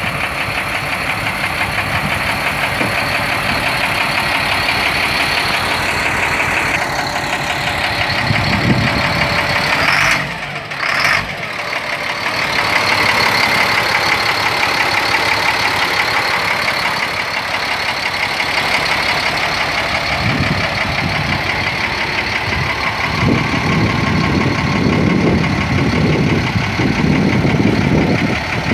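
The 1999 Sterling boom truck's diesel engine, a yellow-painted Caterpillar, idling steadily with the hood raised.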